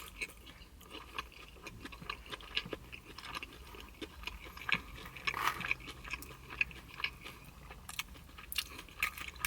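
Close-up chewing of a mouthful of pizza: soft crunches and mouth clicks scattered through the chewing.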